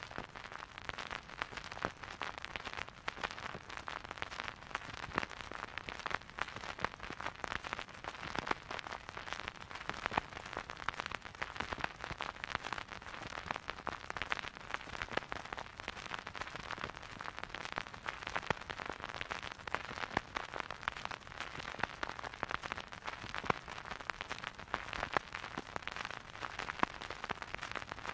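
Old vinyl record's surface noise under the stylus: a steady hiss with dense, irregular crackle and pops, and no music playing.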